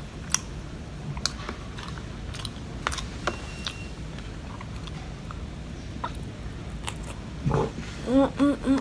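Close-up mouth sounds of eating crispy fried catfish: chewing and biting with scattered sharp crunchy clicks. Near the end a quick run of short hummed voice sounds, about three a second.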